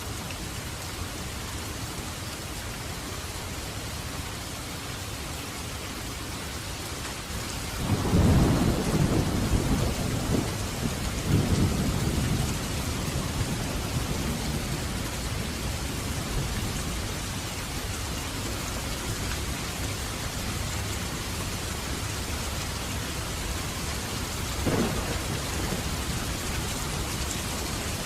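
Heavy rain falling steadily. About eight seconds in, a long roll of thunder rumbles for roughly four seconds, and a shorter low rumble follows near the end.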